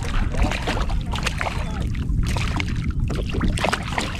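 A hooked porgy splashing and thrashing at the surface beside a kayak as it is reeled up and grabbed, in irregular short splashes over a steady low rumble.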